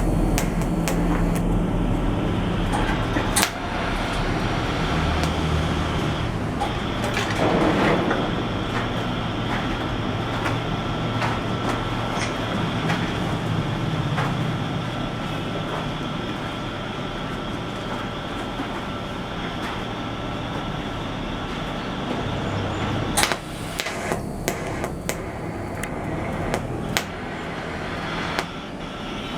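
Electric arc welding: a steady hiss with a faint whine, broken by a few sharp clicks.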